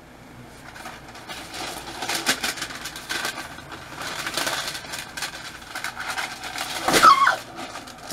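Rustling and light clatter of hands preparing food at a kitchen counter, with many small clicks. About seven seconds in there is a short pitched sound that rises and falls.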